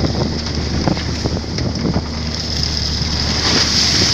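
Boat engine running steadily with a low hum, with wind on the microphone and a few faint knocks.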